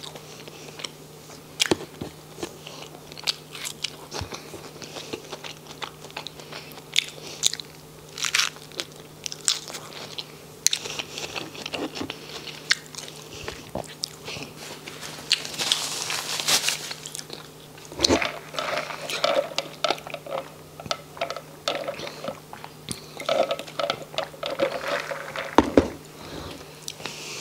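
Close-miked chewing and biting of a Famous Star cheeseburger with lettuce and onion, full of small sharp crunching clicks. A louder rush of hissing noise comes around sixteen seconds in.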